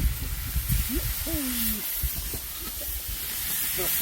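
Food sizzling in a hot pan greased with lard, a steady hiss, with a brief falling tone about a second in.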